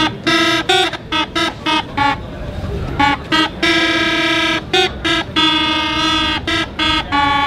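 A small hand-held folk wind instrument playing a quick tune of short, detached notes near one pitch, with a couple of notes held for about a second.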